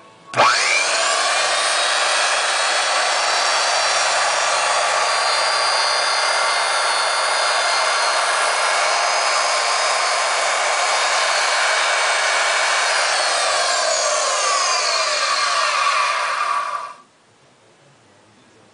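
Tool post grinder's electric motor and belt-driven spindle switched on, spinning up quickly and running at speed with a steady high whine. Near the end the pitch falls as it winds down, and the sound then stops abruptly.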